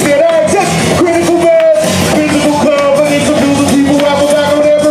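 Loud live amplified music with a voice singing long held notes, heard from inside the crowd.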